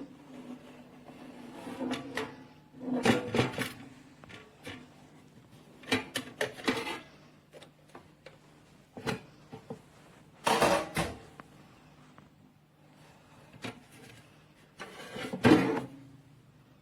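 Handling noises: a series of knocks, clatters and scrapes in irregular clusters, with a faint steady hum underneath.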